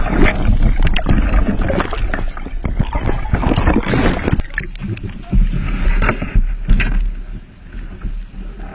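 Water rushing, sloshing and splashing over a camera held just below the sea surface, with a low rumble underneath. The noise is dense for the first four seconds or so, then eases, with a few sharp knocks around six to seven seconds in.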